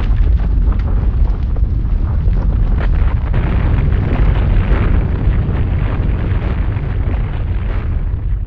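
A loud, continuous sound effect of a deep rumble with crackling, like a blast or eruption.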